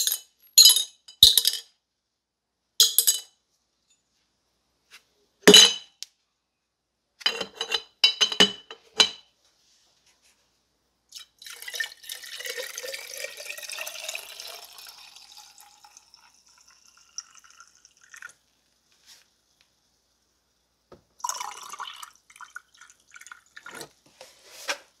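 Small metal parts dropped one after another into a glass jar of liquid, each landing with a sharp clink against the glass, for the first nine seconds or so. Then liquid is poured into the jar in a steady stream for several seconds. Near the end come more pouring and a few clinks.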